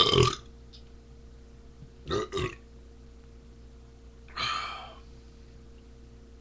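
A person burping on purpose: one loud burp at the start, two short burps in quick succession about two seconds in, and a longer burp about four and a half seconds in.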